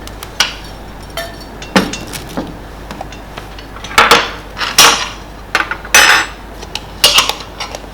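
Metal kitchen utensil clinking and scraping against a bowl in irregular strokes, with the loudest scrapes about four to six seconds in.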